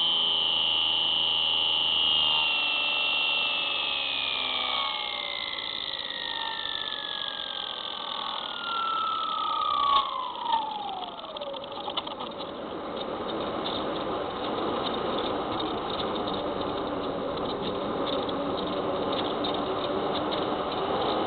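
Spyhawk FPV plane's electric motor and propeller whining, the pitch falling slowly and then more steeply as the throttle comes back, until the whine fades out about eleven seconds in. After that a steady rush of wind over the airframe carries on as the plane glides down, with a few clicks near the changeover.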